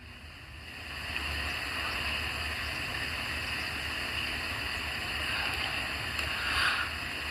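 Steady hiss of background room noise with a low hum underneath.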